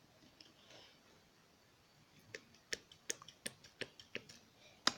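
Faint, irregular small clicks from pouring glue out of a plastic bottle into a bowl, starting about two seconds in.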